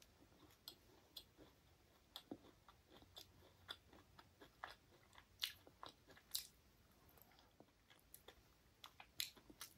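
Close-up mouth sounds of a person chewing a soft Indian sweet: quiet, irregular wet clicks and smacks, with a few louder ones about halfway through and again near the end.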